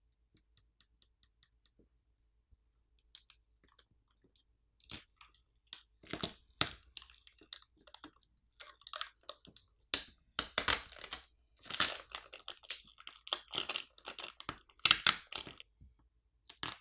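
Clear plastic film and adhesive-backed flex cables being peeled up off a smartphone's battery, heard as irregular crackling and tearing that starts about three seconds in and is densest near the end. A few faint, evenly spaced ticks come before it.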